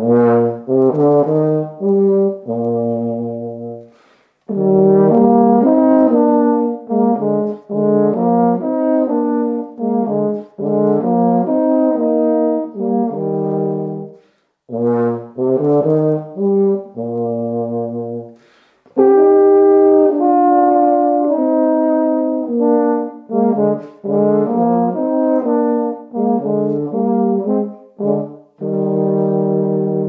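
Two tenor horns playing a slow folk tune as a duet, in sustained phrases broken by short pauses for breath.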